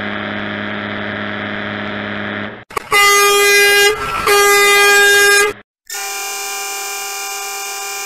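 Semi-truck air horn sound effects played one after another. First a steady low horn blast that stops about two and a half seconds in. Then two louder, higher blasts of about a second each. Then a long, steady, high-pitched horn from about six seconds in.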